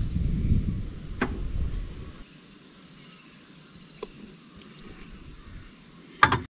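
A collapsible camping pot handled on a portable gas stove: a low rumble in the first two seconds, then sharp knocks about a second in, at about four seconds and a louder one near the end as the pot is set down on the burner grate.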